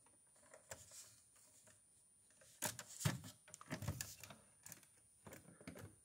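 Hands handling a plastic Lego model: light, irregular clicks and knocks of the bricks and baseplate, most frequent from about halfway through.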